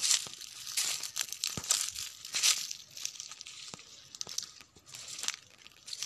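Dry grass and brush rustling and crunching in irregular bursts as someone pushes through tall vegetation, with scattered twig snaps and clicks.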